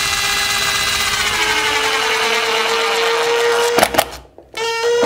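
Makita BTD142 18-volt cordless impact driver running under the trigger to drive a small screw: a steady motor whine that rises slightly in pitch, stopping just before four seconds in, followed by a few short sharp bursts and a brief second run of the motor.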